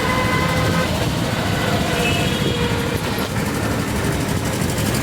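Road traffic noise from passing vehicles, with a steady vehicle horn that stops about a second in and another short horn note near the middle.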